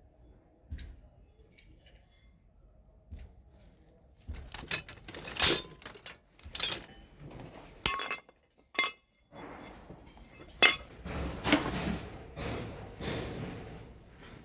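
Pieces of metal clinking and clanking together at an irregular pace, several sharp strikes a second or so apart, starting about four seconds in.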